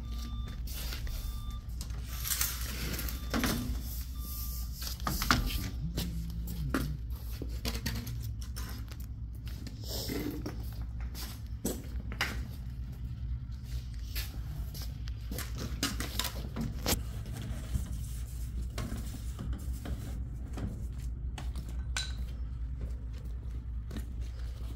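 Footsteps on a concrete floor and scattered knocks and clatter of black ABS drain pipe and fittings being handled, over a steady low hum.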